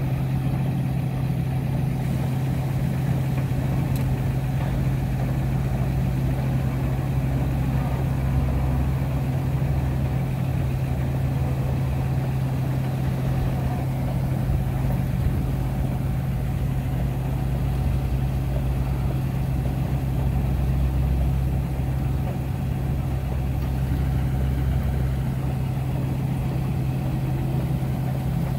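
Steady drone of heavy machinery at a hydraulic truck dump holding a loaded semi trailer tipped nose-up to unload cottonseed: a constant low hum at one pitch, with a deeper rumble that swells between about 7 and 25 seconds in.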